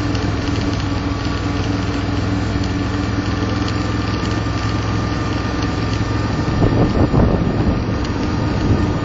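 A vehicle's engine running steadily with road noise, heard from the moving vehicle, growing briefly louder about seven seconds in.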